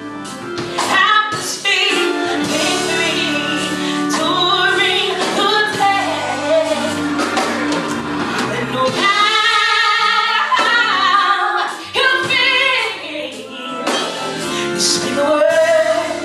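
Gospel music: a woman's voice sings over instrumental accompaniment, with long wavering held notes about halfway through.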